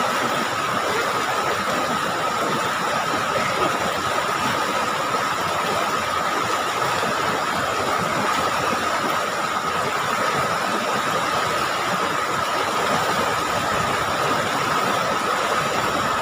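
River rapids rushing steadily over rocks, with a steady high tone running through the noise.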